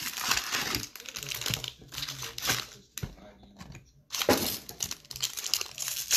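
Foil-wrapped baseball card jumbo packs crinkling as they are handled, then one being torn open: bursts of rustling and crackling with a short lull about three seconds in.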